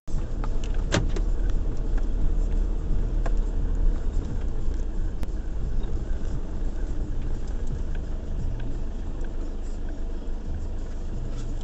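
A car driving slowly, heard from inside the cabin: a steady low rumble of engine and tyres on the road, with a couple of sharp clicks in the first few seconds.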